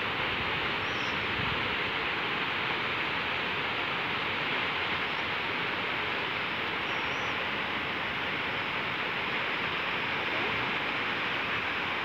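Steady rush of water pouring over a concrete dam's overflow spillway, an even, unbroken noise of falling water.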